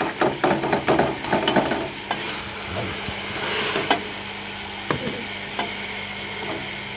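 Chana daal poured into hot fried masala in a pressure cooker: a burst of sizzling and rattling as the grains go in during the first two seconds, then steady sizzling as it is stirred, with a couple of knocks of the spoon against the pot.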